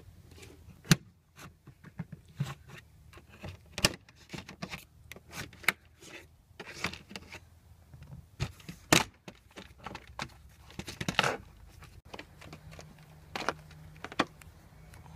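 Irregular clicks, knocks and rustles from hands working on a car's interior plastic trim and door seal, together with handling of the filming phone. A faint steady low hum comes in near the end.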